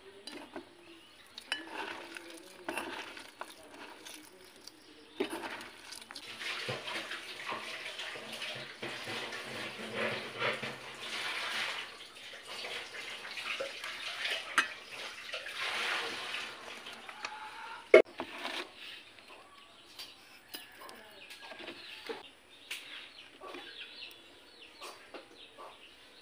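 A bare hand mashing boiled potato into chickpeas and mixing in sliced onion in metal plates: a wet squishing with fingers scraping and tapping the metal. There is one sharp clink about eighteen seconds in.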